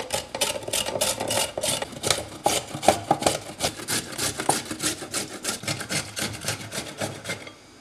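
A carrot being grated on a flat metal hand grater: quick, even rasping strokes, about five a second, that stop shortly before the end.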